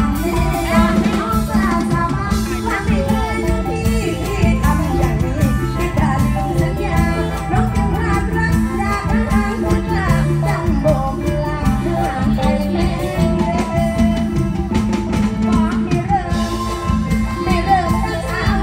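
Live luk thung–mor lam band music over a loud PA, with a woman singing into a microphone over a steady bass and drum beat.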